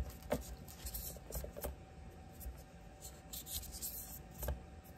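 Light scrubbing and rubbing on a folding knife's brass bolster and handle: faint, irregular scratchy strokes with a few small clicks.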